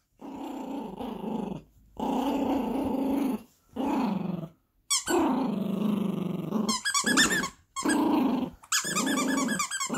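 Yorkshire terrier puppy growling in a string of bouts, each about a second long with short breaks between, while tugging at a plush toy. High-pitched squeaks cut in about seven seconds in and again near the end.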